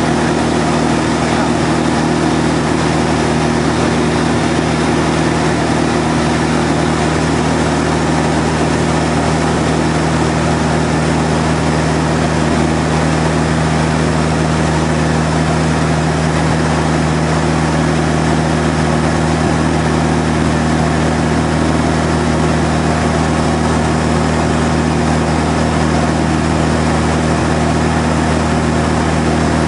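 Van's RV-6 light airplane's piston engine and propeller running steadily in flight, heard from inside the cockpit as a loud, even drone.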